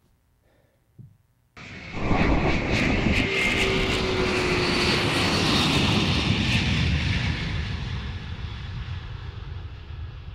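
A loud rushing, rumbling noise cuts in suddenly about a second and a half in, with a few crackles, then slowly fades away. It is a title-sequence sound effect that sounds like an aircraft passing.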